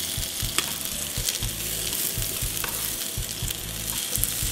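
Butter sizzling steadily in a small nonstick frying pan as cubes of boiled potato and pumpkin fry with fresh oregano, browning, with a spatula moving them about now and then.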